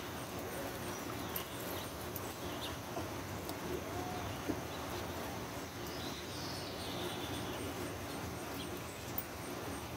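Steady outdoor background hiss with a faint, even high-pitched ticking about three or four times a second, typical of an insect calling, and scattered faint clicks. A single faint short call rises and falls about four seconds in.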